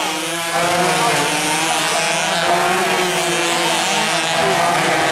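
Several two-stroke 125cc underbone race motorcycle engines buzzing at high revs together, their pitches rising and falling as the riders work the throttle through the corners.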